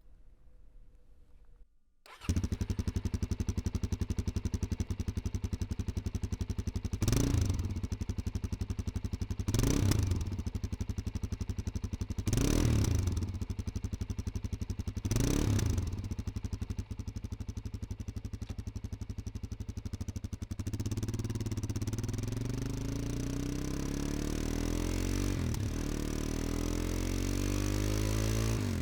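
Suzuki DR-Z400S 398 cc single-cylinder four-stroke engine starting about two seconds in and idling with a steady thump. It is revved four times in quick blips, then run up through the gears in rising sweeps, with pitch drops at the gear changes near the end.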